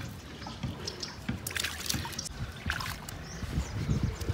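Shallow stream water trickling, with irregular splashes as soapy feet and legs are washed in it over the rocks.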